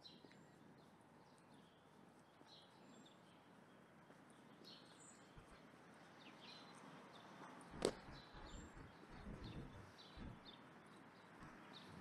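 Faint small birds chirping in short, scattered calls. About eight seconds in comes a single sharp click, followed by a few soft low thumps.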